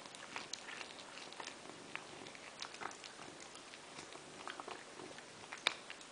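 Maine Coon cat chewing a mouse: irregular small crunches and clicks of its bite, the sharpest one near the end.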